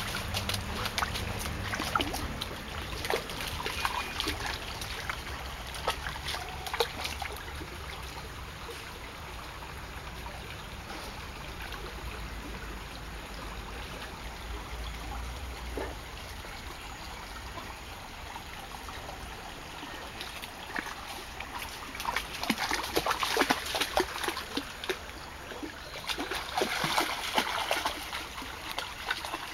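Shallow stream running steadily, with a golden retriever's legs splashing through the water as it wades, in bursts of splashes near the start and again in the last third.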